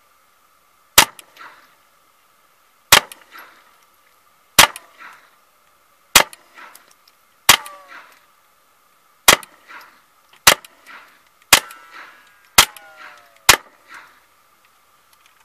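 Ten single shots from a Mossberg 702 Plinkster semi-automatic .22 LR rifle firing Norma Tac-22 rounds, spaced about one to two seconds apart. Each sharp crack is followed by fainter trailing sounds.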